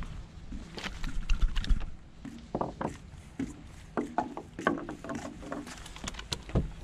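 Irregular clicks, knocks and brief squeaks from hands and a hook working against a caught porgy on wooden pier planks, with some low rumble in the first couple of seconds.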